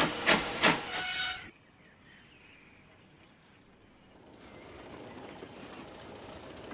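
Steam locomotive chuffing in even beats, about three a second, which cut off suddenly about a second and a half in. A faint steady hiss rises from about four seconds in.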